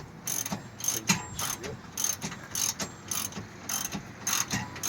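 Hand ratchet wrench clicking in short bursts, about two or three strokes a second, as a fastener is worked during a car axle swap.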